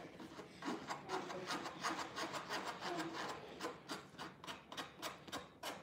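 A spoon scraping powdered sugar through a fine wire-mesh sieve, in faint, quick, repeated strokes.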